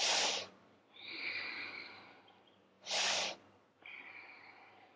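A woman breathing audibly in a paced yoga inhale–exhale rhythm: twice, a short sharp breath followed by a longer, softer one.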